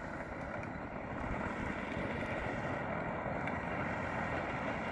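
Power Wheels Dune Racer ride-on toy car driving: its electric drive motors and plastic gearboxes running steadily, with tyre noise, getting a little louder about a second in.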